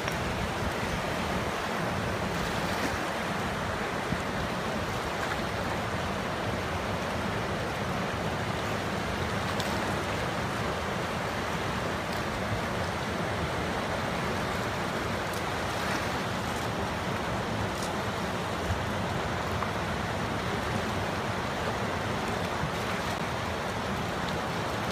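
A fast, turbulent river rushing over rapids: a steady, even wash of whitewater.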